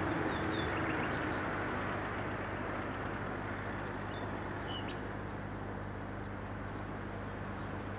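Steady outdoor ambience: an even background rush with a low steady hum, and a few faint, brief bird chirps about a second in and again around the middle.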